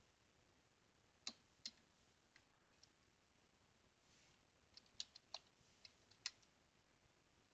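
Faint, scattered keystrokes on a computer keyboard: about ten separate taps with pauses between them, a short command being typed.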